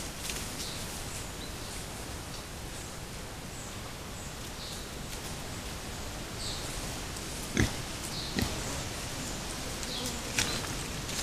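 A young wild boar (Sus scrofa) moving through the churned earth, with two short sharp sounds from it about two-thirds of the way in. These play over a steady hiss and faint high chirps.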